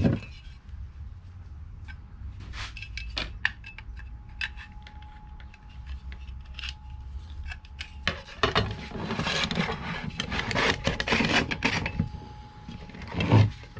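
Metal flat bar sliding inside a metal box-section channel, metal rubbing and scraping on metal with scattered clicks. The scraping grows denser about two-thirds through, and a single knock comes near the end.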